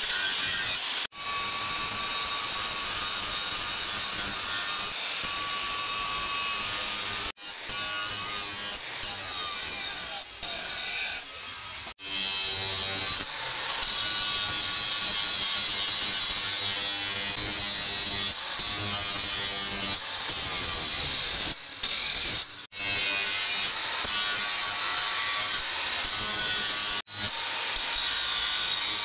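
Angle grinder grinding a steel knife blank: a steady high motor whine over the rasp of the abrasive disc on the metal. The sound breaks off for an instant a few times and picks up again.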